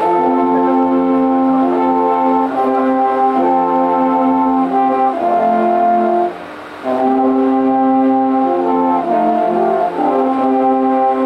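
An ensemble of about ten alphorns playing long held notes together in chords that change every second or so. There is a short break between phrases about six seconds in, then the playing resumes.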